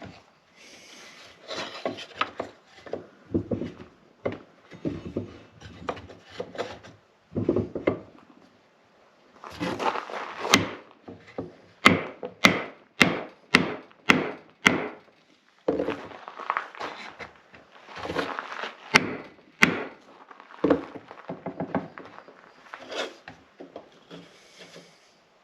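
Hand tools working a piece of wood: irregular rasping or scraping strokes, with a quick run of about eight sharp knocks about halfway through and a few more afterwards.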